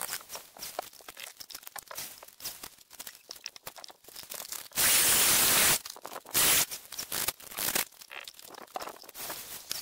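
Scrapes and clicks of hand work on a stone wall, with a loud, harsh rushing noise lasting about a second halfway through and a shorter one just after.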